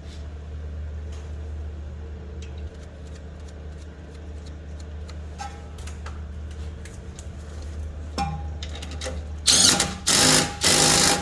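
A power tool driving a bolt home in three short, loud bursts near the end, with light clicks and knocks of parts and tools before it.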